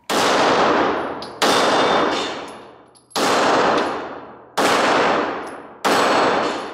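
Ruger Security 9 9mm pistol fired five times at a steady pace, about one and a half seconds apart. Each shot has a long echoing tail, and faint metallic pings sound between the shots.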